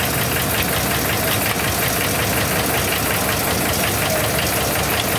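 Tractor engine idling steadily with an even, rapid knocking beat.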